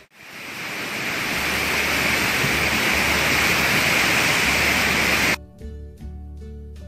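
Waterfall rushing: a steady, even roar of falling water that fades in at the start. About five seconds in it cuts off abruptly, replaced by quieter music with held tones.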